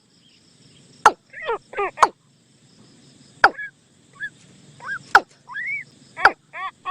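Bird calls used as a trapping lure: short, throaty, chattering notes in quick clusters, some sliding up and down, with sharp clicks several times.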